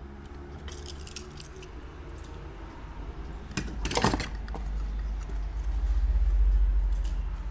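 Small diecast metal toy cars clinking and rattling against each other as a hand rummages through a pile of them in a cardboard box, with a dense clatter about four seconds in. A low rumble of handling follows and is the loudest part near the end.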